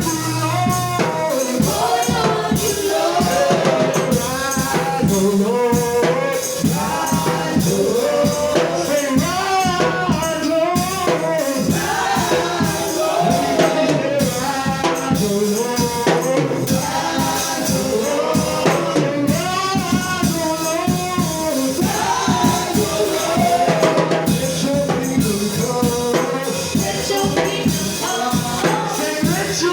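Praise music: voices singing over a band with steady percussion, continuous and loud.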